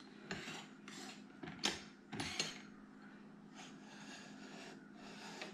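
A ceramic subway tile and the metal rails and handle of a manual tile cutter clicking and clattering as the tile is lined up and the handle is raised. There are a few sharp knocks in the first two and a half seconds, then only fainter handling noise.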